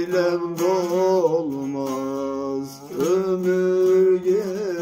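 Man singing long, ornamented held notes in a Turkish folk song, his pitch wavering and bending, while he picks a bağlama (long-necked saz). The voice breaks off briefly about three seconds in, then holds a second note.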